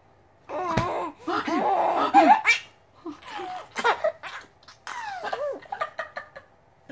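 Almost four-month-old baby laughing while being tickled: a long bout of laughter starting about half a second in and peaking around two seconds in, then two shorter bouts of laughs.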